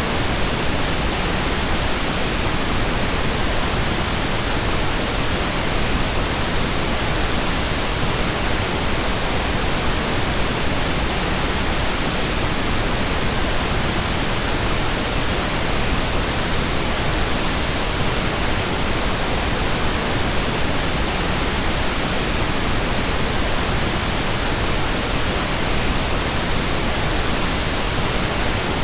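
Pink noise: a steady, even hiss spread across the whole range, unchanging throughout.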